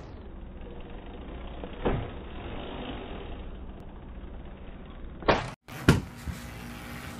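OSET electric trials bike running over grass with a steady low motor hum; a sharp thump about two seconds in, then two more knocks near the end either side of a brief cut-out of the sound.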